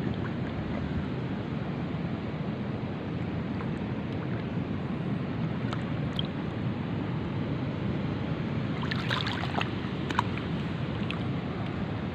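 Steady rush of wind and sea waves, with a short cluster of light clicks about nine seconds in.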